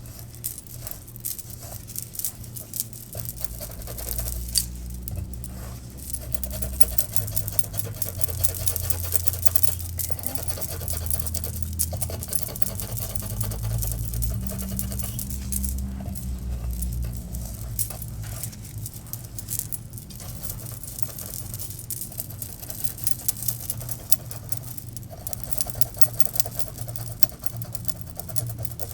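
Fingers rubbing and massaging oil through hair and scalp close to the microphone: a dense, continuous crackle of hair rustling. A low rumble runs under it through the middle stretch.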